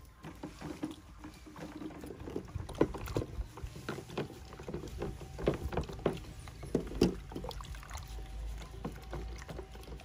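Chicken eggs being washed by hand in a plastic basin of water: water sloshing and splashing, with irregular sharp clicks as the eggs knock against each other and the basin.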